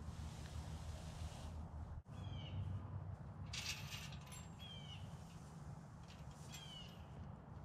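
A bird repeating a short falling call about every two seconds, over a low steady rumble, with a brief noisy burst about halfway through.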